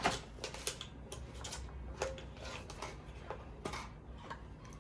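Scattered light plastic clicks and knocks as a robot vacuum's dustbin is handled and opened, sharpest at the very start.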